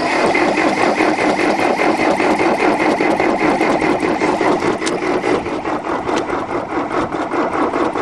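Starter motor cranking the 1974 Case backhoe's cold diesel engine, which has no glow plugs, on a shot of ether, with a fast, even pulsing as it turns over without catching.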